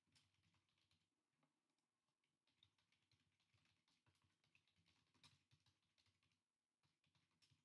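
Very faint, irregular clicking of keys being typed on a computer keyboard, pausing briefly near the end.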